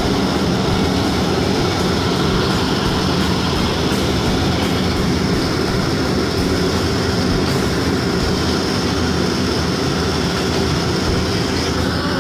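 Engines and propellers of a turboprop airliner running steadily, heard from inside the passenger cabin as a constant loud drone.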